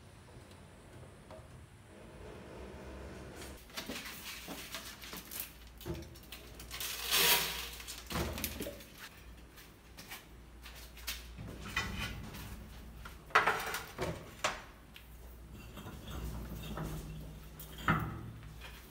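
Scattered light knocks, taps and scrapes on the wooden board and glass tank of a homemade mouse trap, with a few louder knocks among them.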